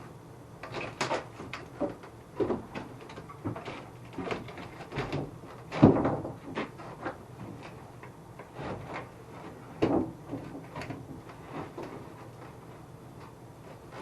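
Irregular knocks and clunks of plywood and wood pieces being handled and set against a cupboard frame, the loudest clunk about six seconds in and another near ten seconds.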